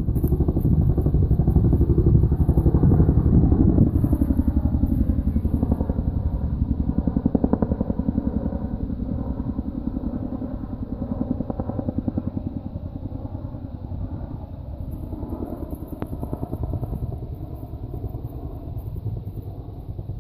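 Tandem-rotor helicopter flying overhead: a fast, even thudding of the rotor blades over engine noise. It is loudest for the first few seconds, then slowly fades as it moves away.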